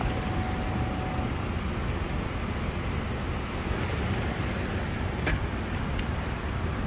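Steady rushing roar of a waterfall pouring into the sea, with one faint click about five seconds in.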